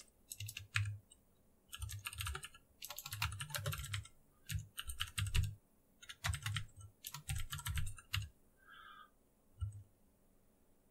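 Typing on a computer keyboard: quick runs of keystrokes broken by short pauses, the last keystroke just before the end.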